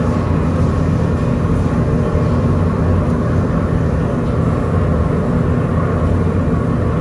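Factory machinery running with a steady, loud low drone made of several held low tones, unbroken and without distinct knocks.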